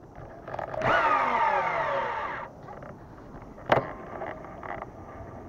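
Abu Garcia Ambassadeur 1500C baitcasting reel casting: the free-spinning spool gives a whine that falls in pitch as it slows, then stops sharply when the spool is thumbed. A second or so later there is a sharp click as the handle is turned, then fainter winding noise from the reel.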